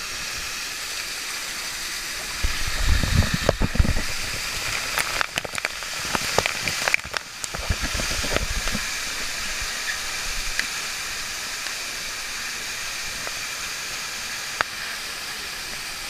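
Waterfall pouring close by, a steady rushing hiss. From about two and a half to nine seconds in, bumps, knocks and splashes of water on the microphone break over it.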